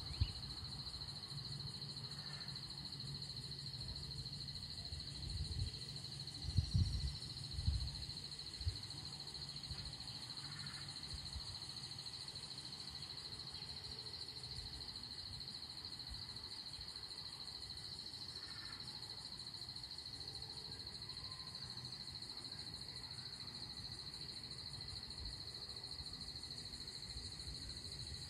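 Steady high-pitched drone of insects such as crickets, with faint short calls recurring about every eight seconds. A few low thumps come between about five and eight seconds in.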